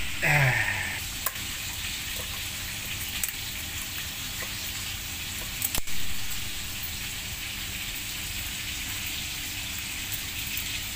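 Fish frying in hot oil, a steady sizzle, with a few sharp clicks from kitchen scissors cutting through a fish head.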